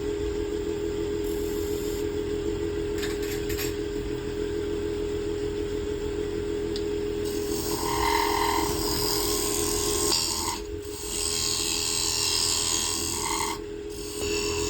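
Wood lathe motor running with a steady hum. From about seven seconds in, a tool works the spinning wood with a loud hiss, breaking off briefly twice.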